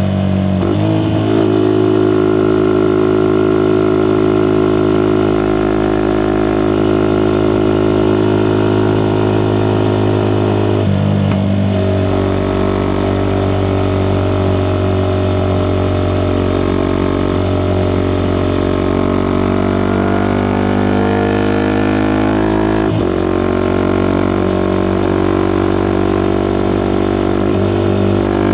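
Suzuki Gixxer SF 250's single-cylinder engine through a Yoshimura R11 exhaust, running at a near-constant low engine speed with a steady drone. The pitch shifts briefly about 11 and 23 seconds in.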